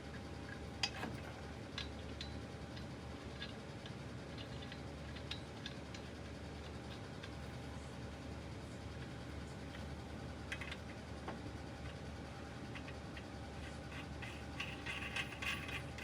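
Scattered light metal clicks and scrapes over a steady low background hum, with a small cluster near the end: a heavy steering knuckle being fitted onto the axle's ball joints and its nut being started.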